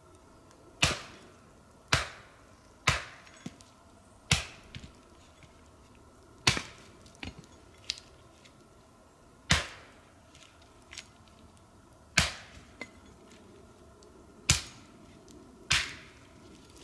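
Hatchet chopping wood: about nine sharp, heavy blows at uneven intervals, some a second apart and some nearly three, with a few lighter knocks in between.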